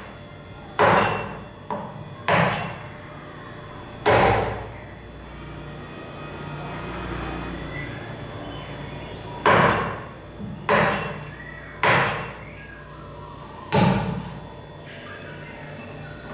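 A meat cleaver chopping raw chicken feet on a wooden chopping board: about eight heavy chops, each with a short ring. There is a pause of about five seconds in the middle.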